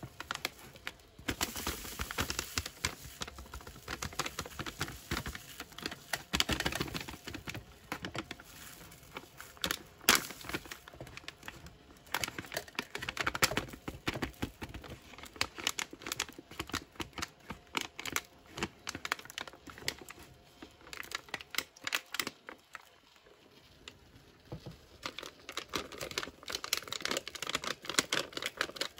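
Foil-laminate MRE drink-powder pouch crinkling and crackling as it is squeezed and shaken to empty chocolate protein powder into a plastic shaker cup. There is an irregular run of crackles with a brief lull about two thirds of the way through.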